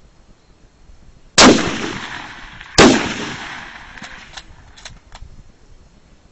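Two big-bore rifle shots on an open-air firing line, about a second and a half apart, each trailing off in a long rolling echo. A few fainter sharp clicks follow.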